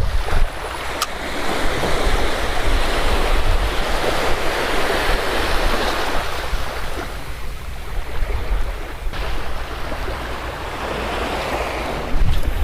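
Ocean surf washing onto a beach, swelling and easing over several seconds, with wind rumbling on the microphone.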